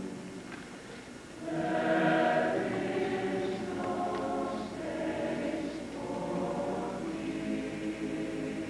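Large mixed choir singing sustained chords; the voices come in strongly about a second and a half in after a softer opening.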